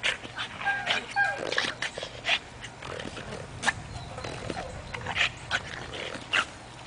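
French bulldog whining and growling as it leaps at and hangs from a rope toy, with irregular short, sharp noises as it tugs and scrambles.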